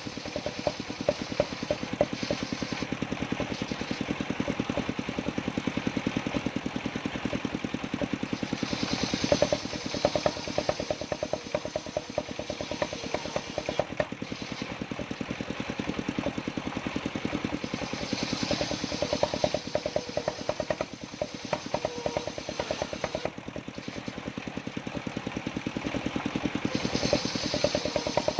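Engine of a mobile circular sawmill running steadily with a rapid even pulse, while the circular saw blade cuts through johar wood, bringing a brighter hiss in several stretches.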